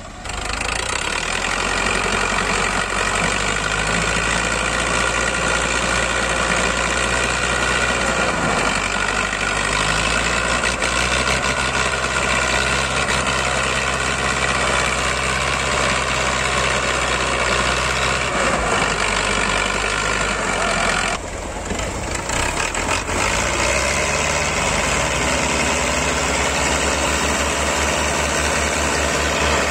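Farm tractor diesel engines running hard under load while a tractor towing a combine harvester on a low-bed trailer spins its rear wheels in soft sand, stuck. About two-thirds of the way through, the engine sound drops briefly and comes back with a different note.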